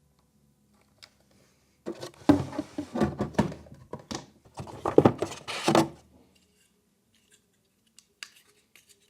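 Hands handling packaging and tool parts: about four seconds of scraping, rustling and clicking, then a few light clicks near the end.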